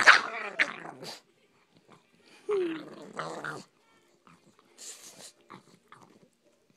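Dog growling and snarling in two loud bursts, one at the start and one about two and a half seconds in, then softer noises: a dog guarding its bone.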